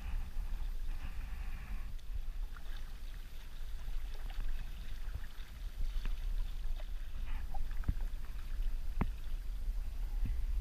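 Kayak paddling: the paddle blades splash and drip water, with several sharp drips in the second half. A steady low rumble of wind and water on the camera microphone runs underneath.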